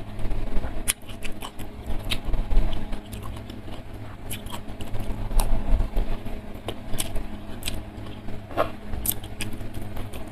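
Close-miked eating: chewing and mouth sounds with scattered sharp clicks of a metal spoon against a clay dish.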